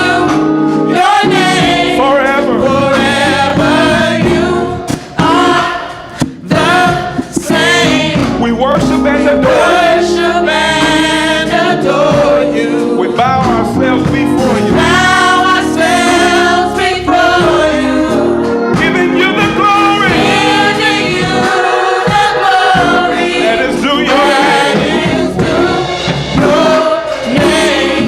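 Gospel worship music: a group of voices singing together over musical accompaniment, with a brief drop in level about five seconds in.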